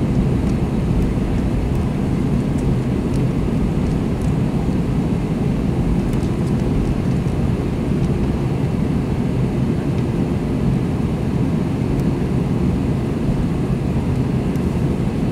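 Airbus A321 cabin noise heard from a seat by the wing: the jet engines running steadily as a low, even rumble while the airliner taxis onto the runway.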